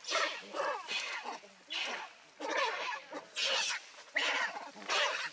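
Baby macaque crying: a run of about eight loud, shrill cries in quick succession, each under half a second.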